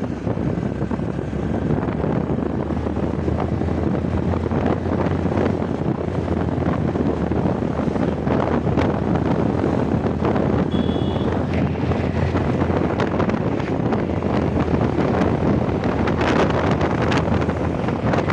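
Motorcycle ridden fast, with wind buffeting the microphone over the steady low drone of the engine and the road noise, growing slightly louder.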